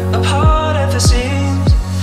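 Pop/R&B song with a deep, falling kick drum hitting about every 0.6 seconds over sustained bass and chords, with sharp cymbal hits.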